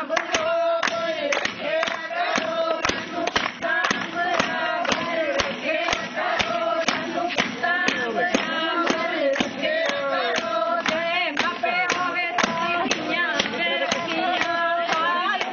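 A group of women singing Punjabi boliyan in chorus, keeping time with sharp hand claps about two a second.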